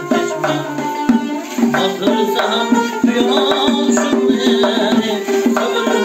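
Doira frame drum and a long-necked plucked lute playing a Central Asian folk tune together. The drum's rapid finger strokes run over the lute's plucked melody.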